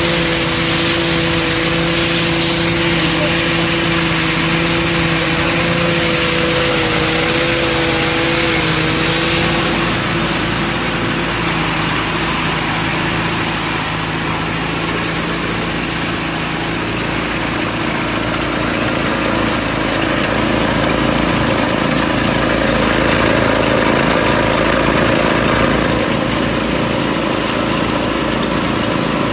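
5TG-80 paddy rice thresher running, its small engine and threshing drum making a steady mechanical hum with a dense rushing hiss as rice stalks are fed through. A steady pitched whine sits over it for the first ten seconds or so, then weakens.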